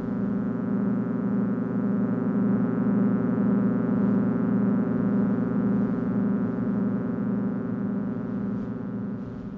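Synthesized electronic sound effect: a steady, many-toned electronic drone that pulses about three times a second, swelling in the middle and fading away near the end.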